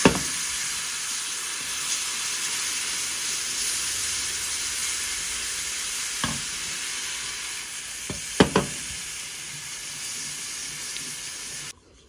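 Seasoned broth sizzling as it hits a hot flour-and-butter roux in a frying pan while it is stirred with a wooden spoon: a steady hiss, stopping abruptly near the end. A few sharp knocks against the pan come through, the loudest two close together about eight and a half seconds in.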